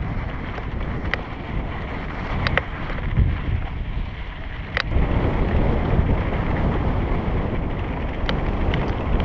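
Wind buffeting the microphone over the rumble of an electric mountain bike's tyres on a dry, stony dirt trail, with a few sharp clicks and knocks as the bike rattles over stones. The rumble grows louder about five seconds in.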